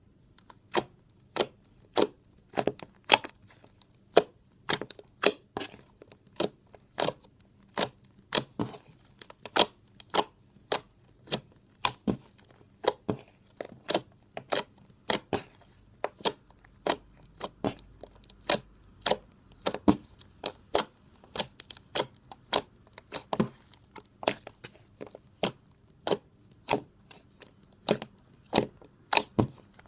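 Blue slime being poked with fingers: a string of sharp, short pops and clicks from trapped air, about two to three a second at uneven spacing.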